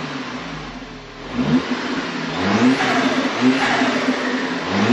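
Exhaust of a 2014 Audi A4's TFSI turbocharged four-cylinder on its stock catalytic converter, free-revved several times. Each rev rises in pitch and falls back to idle, about four blips in all.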